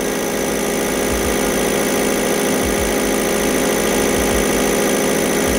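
Bosch injection pump test bench running steadily, driving an inline diesel injection pump at about 900 rpm pump speed under full load: a continuous mechanical hum and rattle of the bench drive and pump during a delivery-equality test.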